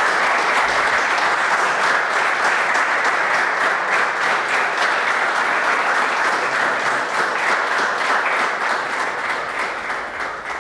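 A small seated audience applauding, many hands clapping together in a dense, steady patter that dies away near the end.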